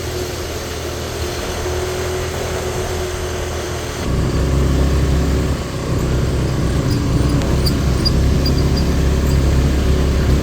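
Car driving along, a steady low engine and road rumble that gets louder about four seconds in.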